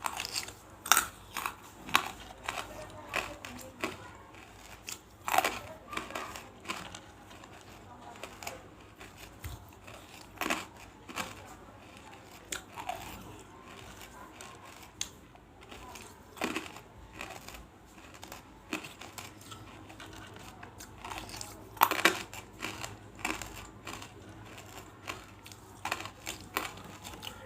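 Pieces of banslochan (tabashir, the brittle silica from bamboo) being crunched and crushed in the mouth, close to the microphone. The crunches are sharp, irregular and crackling, some single and some in quick clusters, with the loudest about 22 seconds in.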